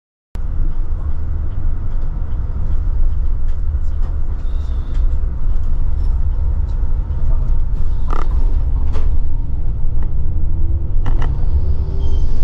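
Inside a moving express coach: a steady low engine and road rumble, with creaks and a few sharp knocks from the bus body. A faint engine note rises slowly toward the end. The sound cuts in abruptly just after the start.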